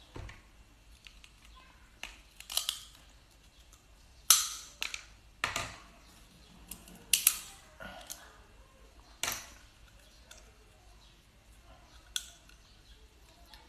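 Cooked Boston lobster shell being cracked and pulled apart by hand: a series of sharp, crisp snaps every second or two, the loudest about four seconds in.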